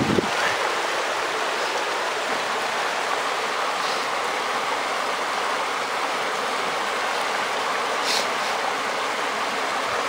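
Mountain creek water rushing over rocks, a steady, even rush of water.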